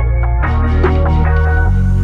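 Background music: a run of quick plucked notes over a steady bass line.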